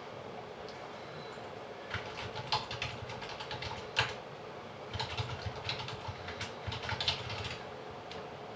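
Typing on a computer keyboard: two spells of quick key clicks, each about two seconds long, with a short pause between them.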